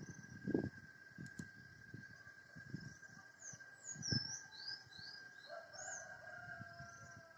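A steady, unidentified high-pitched hum in the sky at dawn. Small birds chirp over it, and a rooster crows in one long, slowly falling call from about five seconds in. A few dull low thumps come in between.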